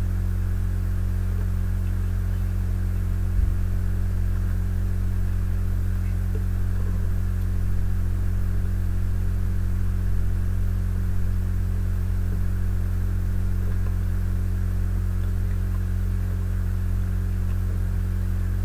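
Steady low electrical hum with a light hiss, along with a few faint, soft sounds of someone chewing a bite of Pop-Tart.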